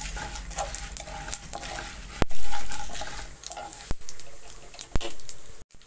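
Mustard seeds, urad dal and chana dal sizzling in hot oil in a non-stick pan, with scattered crackles and pops as a wooden spatula stirs them. A sharp click about two seconds in is the loudest sound.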